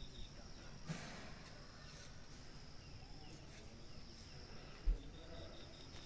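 Quiet outdoor ambience: a faint steady high hum and, about five seconds in, a short run of rapid high-pitched chirps, typical of insects in the surroundings. A single soft low thump comes just before the chirps.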